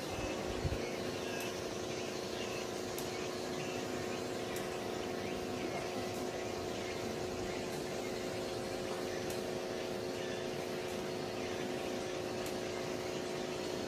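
Steady machine hum of a motor running, holding several even tones without change.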